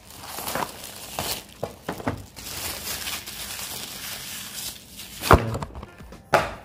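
Cardboard camera packaging handled on a glass tabletop: rustling, scraping and light clicks as the box is moved and opened, with two sharp knocks about a second apart near the end.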